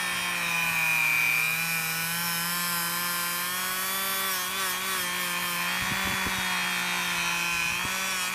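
Dremel rotary tool running steadily with a homemade Scotch-Brite disc, rubbing along the steel shaft of a scratch awl to clean and polish it. A steady motor whine whose pitch wavers a little midway, with a rubbing hiss over it.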